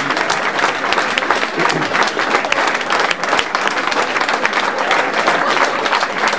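Audience applauding steadily, a dense run of many hands clapping, with some voices in the crowd.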